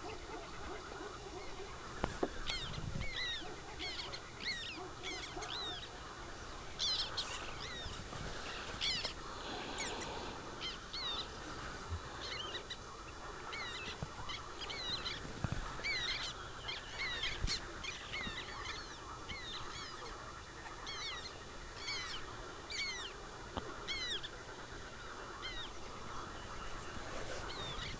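Wild birds singing in a dense chorus: many short, high falling chirps repeating throughout.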